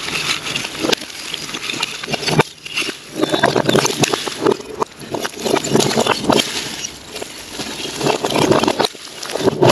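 Bricks of a crumbling old garden wall being pushed over by hand, tumbling and clattering onto a heap of broken bricks in a run of knocks and crashes. The wall's bricks are in poor, unstable condition and come away without tools.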